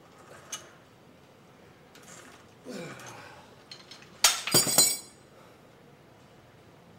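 Cable machine weight stacks clanking down at the end of a set: a quick cluster of metal-on-metal clanks with bright ringing, about four seconds in, the loudest sound. A little earlier, a short falling grunt.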